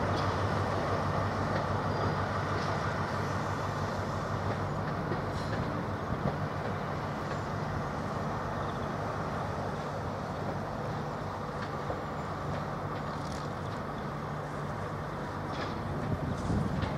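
Diesel engines of an HST's Class 43 power cars running steadily under power as the train draws away, a low drone that fades a little as it goes.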